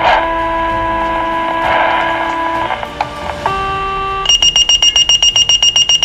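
Fire-department dispatch alert tones: steady sequential paging tones that step from one pitch to another, then from about four seconds in a fast high-pitched beeping at about seven beeps a second. This is the alert that sets off a fire station's call-out before the voice dispatch.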